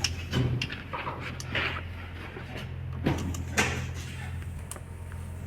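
Scattered clicks and light knocks of the isolator switch's small parts being handled and fitted back together, with a few short rasping strokes, over a steady low hum.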